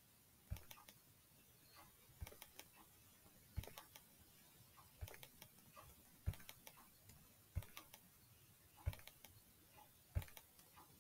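Computer mouse button clicked eight times, about every 1.3 s, each a faint click of press and release, advancing an online photo gallery one picture per click.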